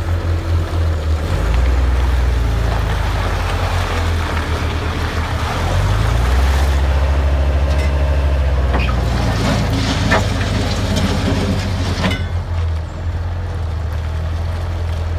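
Bobcat 753 skid steer loader's diesel engine running at varying throttle, with a few clanks from the machine in the second half; the engine eases back about three-quarters of the way through.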